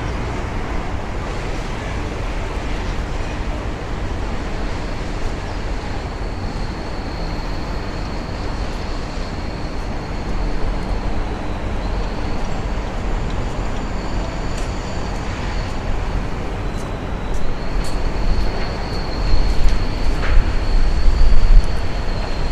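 Steady outdoor background noise with a deep rumble. A thin, steady high-pitched tone comes in about six seconds in, and the rumble swells near the end.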